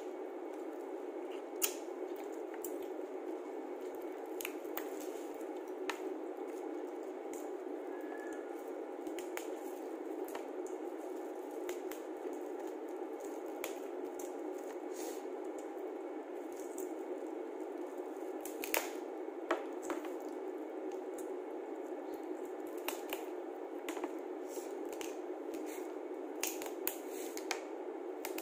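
Hands peeling cooked shrimp: wet squishing with scattered sharp cracks and snaps of shell, a few of them louder, over a steady background hiss.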